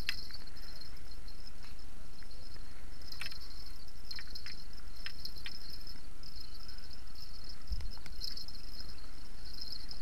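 Crickets chirping in a steady high, pulsing band over a low rumble of wind on the microphone, with a few faint clicks in the middle.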